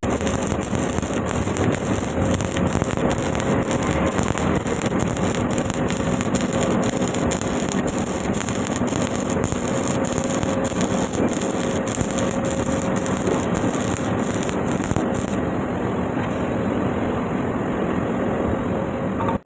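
Stick (arc) welding: the electrode arc crackles and hisses steadily and without a break, and about fifteen seconds in the sound turns duller.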